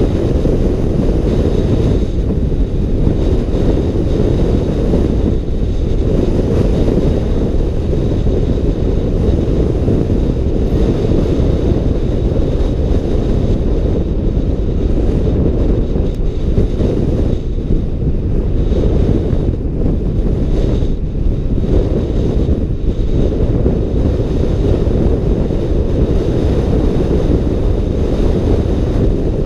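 Wind buffeting the microphone of a helmet camera on a motor scooter moving at road speed: a loud, steady low rush of wind noise.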